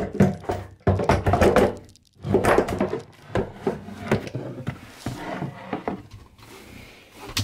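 Wooden locker panel being lifted out and shifted in a cramped cabin: a run of knocks and thunks, the loudest in the first three seconds, lighter knocks after.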